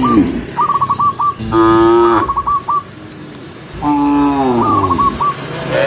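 Cows mooing: two long, loud calls at about a second and a half and about four seconds in, and the tail of another right at the start.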